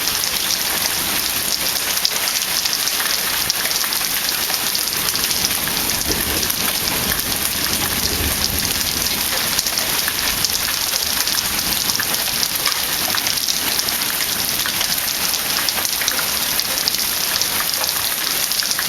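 Rain and hail from a storm pelting down on a hard surface: a steady, loud, dense patter of many small strikes. A low rumble swells briefly about six to nine seconds in.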